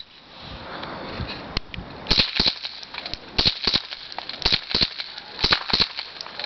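Homemade suppressed .22 LR pistol firing a string of shots. From about two seconds in there are sharp, muffled cracks roughly once a second, each followed closely by a second snap.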